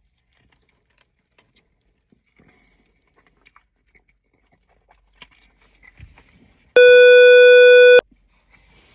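Faint chewing and small mouth clicks, then, about seven seconds in, a loud buzzy electronic beep held steady for just over a second that cuts off sharply.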